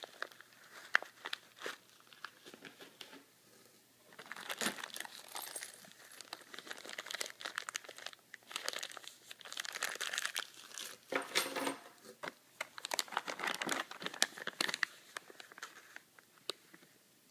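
Small clear plastic zip-lock bags of screws, bolts and bearings crinkling as they are handled and turned over. Scattered clicks in the first few seconds, then denser crinkling from about four seconds in, dying down near the end.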